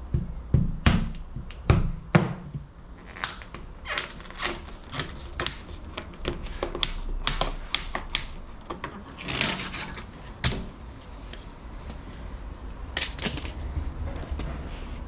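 Hand tools working the glazing beads of a plastic (uPVC) door panel, prising them out to free the glass. A few heavy knocks come in the first two seconds, then a run of sharp plastic clicks and taps, with a short scrape about nine seconds in.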